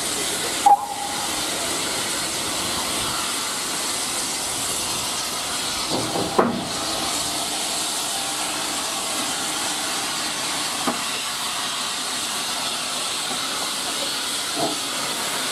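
Steam locomotive letting off steam: a steady, loud hiss with no break. A couple of short metallic knocks are heard about six seconds in.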